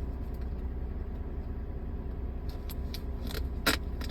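Taped cardboard packaging being pulled and torn open, with a few crackles late on and a loud sharp tear about three and a half seconds in, over a steady low hum.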